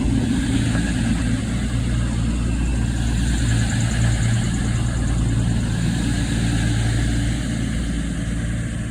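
Class 221 Super Voyager diesel-electric multiple unit's underfloor diesel engines running steadily with a low hum. The sound fades slightly near the end.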